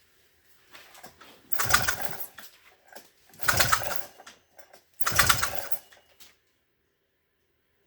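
Honda 200SX single-cylinder engine being cranked over in three short attempts of about a second each, turning over without firing: the engine has no spark.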